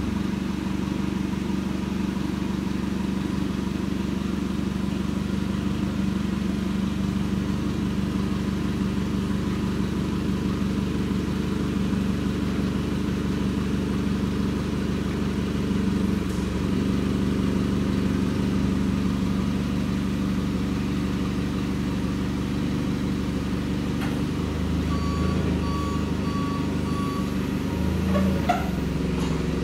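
Forklift engine running steadily under the work. Near the end its backup alarm beeps about four times, followed by a short knock.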